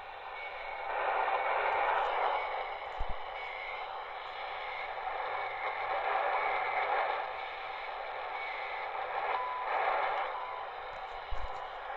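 XHDATA D-220 pocket shortwave radio's speaker playing hissing, fading shortwave noise while tuned to the CHU time station, a weak midday signal on the 41-metre band. About two and a half seconds before the end, CHU's short once-a-second time beeps come through the noise. Two light knocks are heard, one at about three seconds and one near the end.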